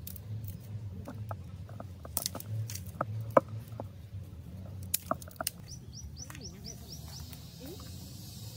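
A few sharp clicks and cracks over a steady low hum, then a bird chirping a quick run of short, high, rising notes a little after five and a half seconds in.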